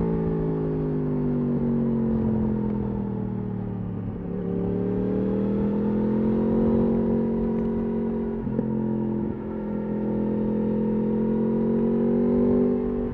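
Yamaha R1 RN22's crossplane inline-four engine through an Akrapovič exhaust, under way: the revs fall for about four seconds, climb again, then hold at a steady pitch, with two brief dips in the sound about eight and nine seconds in.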